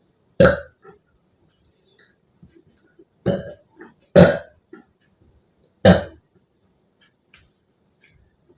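Four loud, short burps from a person chugging fizzy Sprite, the soda's gas coming back up. The second and third come about a second apart.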